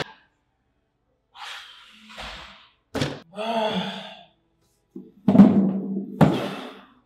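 A young man's wordless sighs and groans of frustration, coming in separate bursts, with two sharp knocks: one about three seconds in and one near the end.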